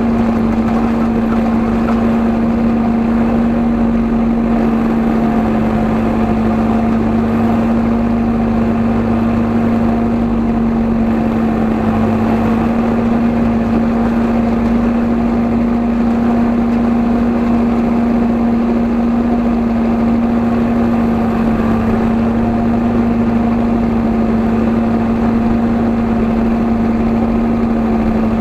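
Kubota M7 tractor's diesel engine running at a steady speed, heard from beneath the chassis, with one even hum and low rumble that do not change.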